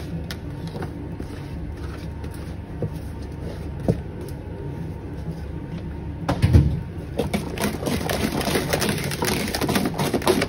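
Wire balloon whisk beating pastry cream in a large aluminium pot, the wires ticking and scraping rapidly against the pot. The strokes are sparse at first and turn dense after a low thump about six and a half seconds in, over a steady low mechanical hum.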